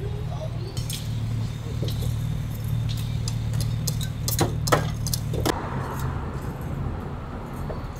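Street ambience: a steady low rumble of traffic with several sharp clinks and clicks in the first half; about five and a half seconds in a hissing wash of traffic noise comes in.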